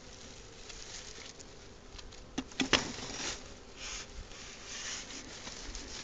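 A stick knocking and scraping against a wooden beehive box: a few sharp knocks with scraping rustles about halfway through, then softer rustles.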